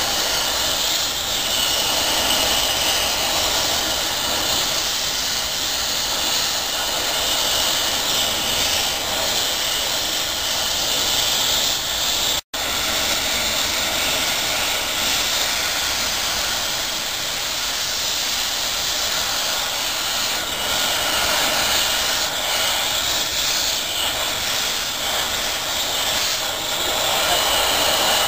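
Bronze-foundry equipment making a steady, loud roaring hiss that runs on unchanged, cutting out for an instant about twelve seconds in.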